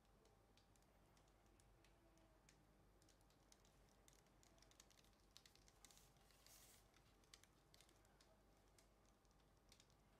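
Near silence with faint scattered clicks and light rustling, thickest in the middle with a short hiss, as a wet painted canvas is handled and tilted by gloved hands over a paper-covered table.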